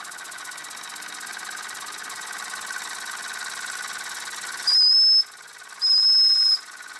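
Wilesco D5 model steam engine's boiler whistle blown twice near the end, two loud high steady blasts, the second a little longer. Under it the small oscillating-cylinder engine runs steadily with a fast even beat.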